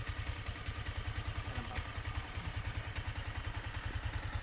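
Yamaha Sniper 155R's single-cylinder engine idling steadily with an even low pulse. It is being run so the water pump circulates the coolant and purges air pockets from a newly fitted radiator.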